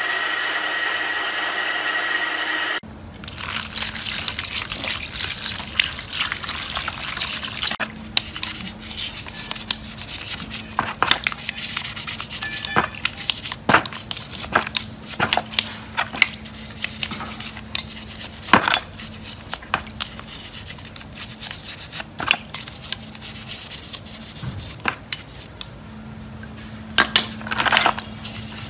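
For about the first three seconds, a motor-driven wire wheel runs steadily as a coil spring is held against it, cutting off suddenly. Then small metal machine parts are scrubbed with a hand brush in a basin of dirty liquid: irregular splashing and sloshing, brush scraping and sharp clinks of metal against metal.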